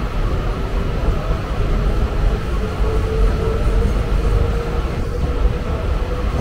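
Steady rumble of a moving passenger train heard from aboard, its wheels running on the rails, with a faint steady whine over it.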